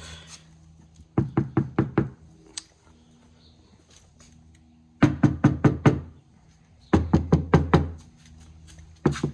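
Runs of quick knuckle knocks on a car door lined with sound-deadening mat, giving a dull, solid thud with no rattle. There are three runs of about six knocks each, about a second in, about five seconds in and about seven seconds in, and another run starts at the very end.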